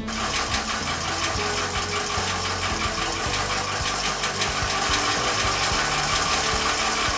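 Model sawmill's small motor-driven saw mechanism running, a steady fast mechanical rattle of many fine ticks that starts abruptly.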